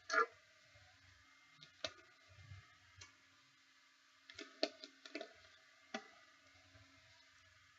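Scattered soft clicks and taps of something small being handled, about ten in all, the sharpest right at the start and several close together a little past the middle.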